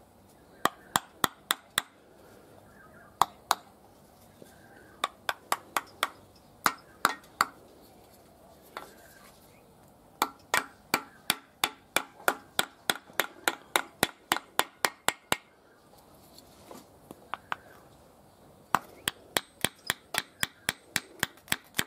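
Light hammer taps on a wooden dowel, driving a rope-type rear main bearing seal down into its groove in a 308 V8 engine block. The taps come in runs of a few to over a dozen, about three or four a second, with short pauses between runs.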